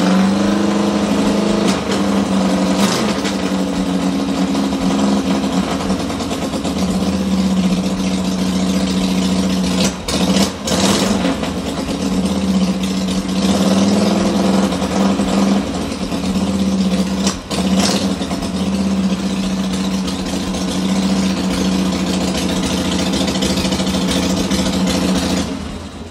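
Harley-Davidson chopper's V-twin engine running steadily at a high idle with the choke pulled, just after a fresh start. The owner suspects the high idle comes from a cable he rerouted, now too tight.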